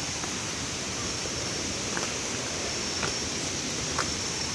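Steady rushing of a nearby waterfall, an even unbroken roar of falling water. A faint steady high tone runs over it, and a few light ticks are spaced about a second apart.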